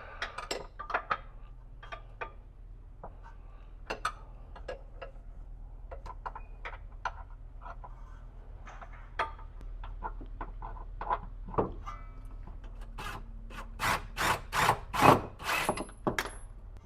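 Hand tools and metal suspension parts clinking and knocking as a rear control arm is worked loose, scattered clicks and taps, then a run of about six loud knocks about half a second apart near the end.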